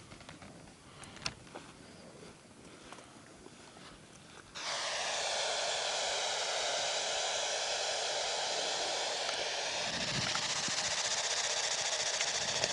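A ghost-hunting spirit box is switched on about a third of the way in and runs as a steady, loud hiss of radio static. Before it comes on, a few faint clicks are heard as the device is handled.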